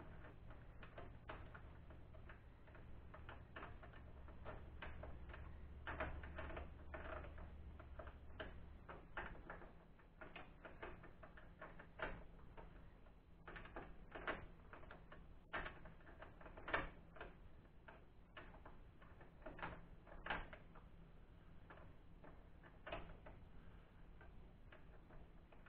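Faint, irregular metallic clicks and ticks, about one or two a second with a few louder ones, from hand tools working the lock nut on a Honda Valkyrie's swing arm pivot bolt as it is backed off.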